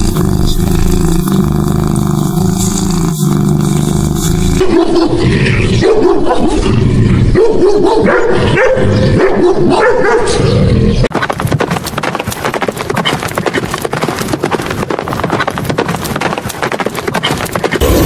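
Animal sounds in turn. A steady low hum of even pitch comes first. About four and a half seconds in, a dog starts barking and whining in short calls that bend in pitch. From about eleven seconds a fast, dense crackle of clicks runs on to the end.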